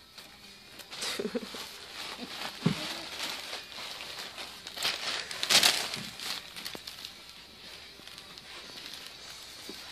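Magazine pages being crumpled and torn by a baby's hands: an uneven run of paper crinkling and rustling, loudest about five and a half seconds in.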